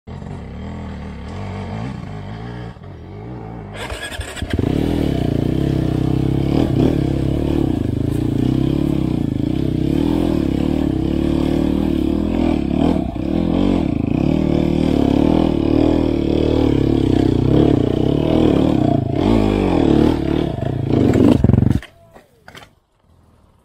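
Enduro dirt bike engine running, fairly quiet for the first few seconds, then much louder and steady from about four seconds in, with small rises and falls in pitch. It cuts off suddenly near the end.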